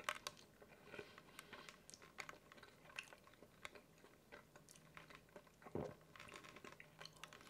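Faint, close-miked chewing: soft wet mouth clicks and small crackles as a mouthful of food is worked. A brief low throat sound about six seconds in.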